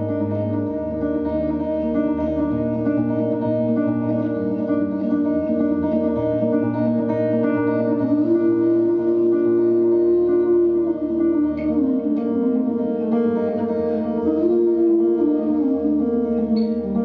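Guitar-led band playing an instrumental break of a folk-rock song: strummed guitar over a moving bass line, with a held lead melody coming in about halfway through and again near the end.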